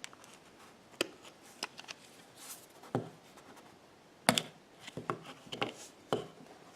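Scattered small clicks and taps of a pry tool working an iPhone 6 display up from its frame, about one a second, with the sharpest click a little past the middle.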